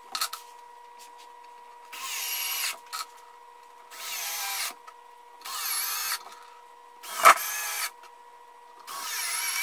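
Cordless drill driving five screws through plywood into a 2x4, each a short motor whine of under a second, about a second and a half apart. One run has a sharp click partway through.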